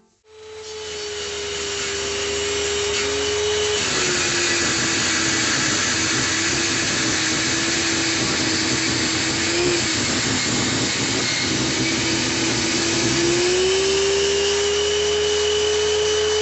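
Table saw cutting through a cast epoxy resin block. The blade's steady tone drops in pitch about four seconds in as it bites into the resin under load, then rises again near the end as the cut eases.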